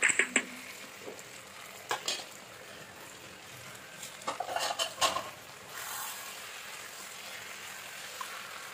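Metal utensils clinking and scraping against a wok and bowl as fried chicken pieces are added to stir-fried bell peppers, over a faint steady frying sizzle. A flurry of stirring strokes comes about halfway through.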